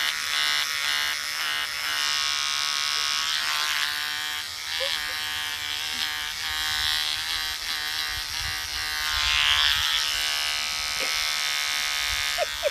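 Cordless electric beard trimmer buzzing steadily as it cuts through a beard, the cutting hiss rising and falling as the blade moves over the chin.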